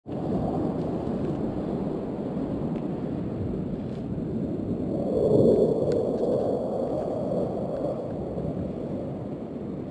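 Rumble of aeroplanes passing overhead, swelling to its loudest about halfway through and then slowly fading.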